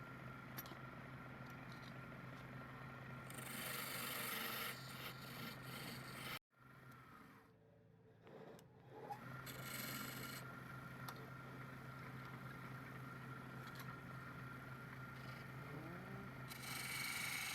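Turning tool scraping wood spinning on a lathe, over the steady hum of the lathe motor. The sound drops out abruptly about six and a half seconds in, then the scraping resumes.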